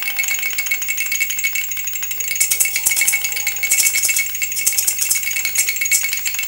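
Several plastic baby rattles being shaken in a fast, continuous rattle over a steady high tone. The shaking grows louder and brighter about two and a half seconds in.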